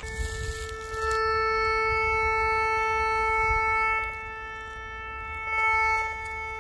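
DR. OTEK metal detector sounding a steady, single-pitch buzzy tone as its search coil sweeps over disturbed ground: a target signal. The tone is louder for about three seconds from a second in and swells again briefly near the end, with no change in pitch.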